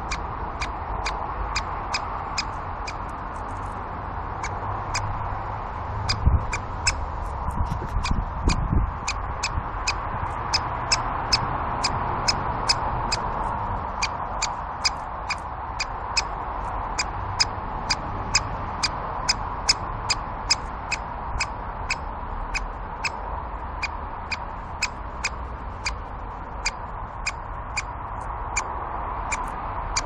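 Great spotted woodpecker giving a long, even series of short, sharp 'kik' calls, about two to three a second. A few low thumps come between about six and nine seconds in.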